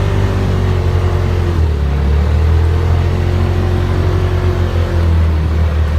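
Polaris RZR Turbo side-by-side's engine running under load, its note falling and rising as the throttle changes.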